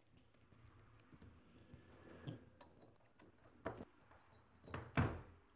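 Faint clicks and light metal taps of an Allen key working the screws of a metal scanner adapter, with a louder knock about five seconds in.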